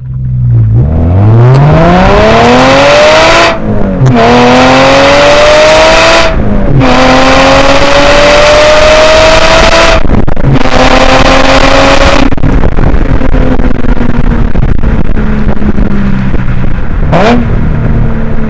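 Subaru Legacy Spec.B's 3.0-litre flat-six (EZ30R) through a muffler-deleted exhaust, accelerating hard through three upshifts of the six-speed manual, the revs dropping briefly at each shift. It then eases off with the revs slowly falling, and gives a short rev blip near the end. Heavy wind noise overloads the outside-mounted microphone.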